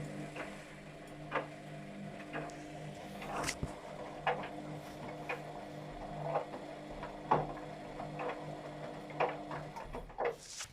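Luxor WM 1042 washing machine running at the start of a Cotton 40° programme: a steady motor hum with irregular clicks and knocks over it, about one a second. The hum cuts off near the end.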